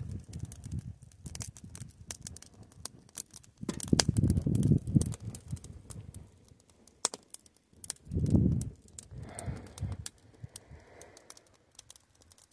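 Small wood campfire crackling, with many scattered sharp pops. A couple of low muffled rumbles come about four and eight seconds in.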